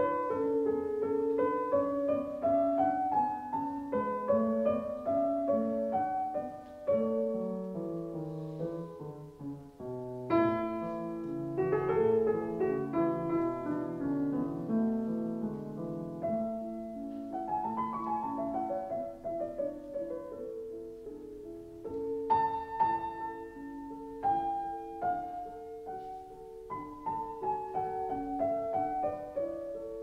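Background piano music: flowing runs of notes rising and falling under a melody.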